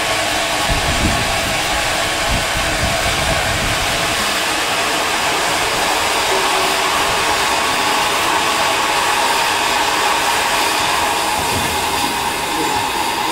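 Steam locomotive, Somerset & Dorset Joint Railway 7F 2-8-0 No. 53809, giving a loud, steady hiss of escaping steam, typical of blowing off at the safety valves while standing. Low rumbles come through in the first few seconds.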